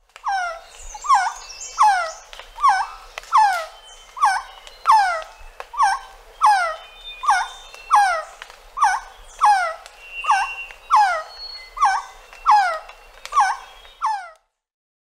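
Resplendent quetzal calling: a long, even series of downslurred notes, about one and a half a second, stopping shortly before the end.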